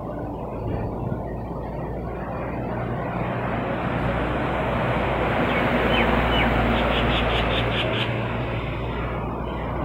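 Vehicles passing on the road below: a jeep and a motorcycle drive by, their engine noise swelling to a peak about six seconds in and then fading.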